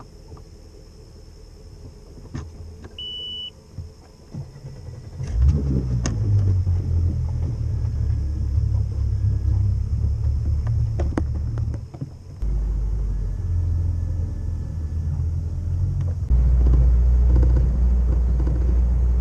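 A short electronic beep, then about five seconds in an engine starts and runs with a loud, steady low rumble.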